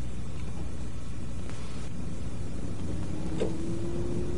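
Steady low rumble, with a faint thin tone coming in about three seconds in and a brief click just after.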